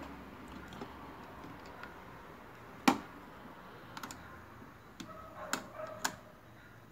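Plastic clicks and taps of a Navcity NG100B action camera's clear waterproof housing being pushed onto its plastic helmet mount: one sharp click about three seconds in, then a few lighter clicks and knocks as it is settled into place.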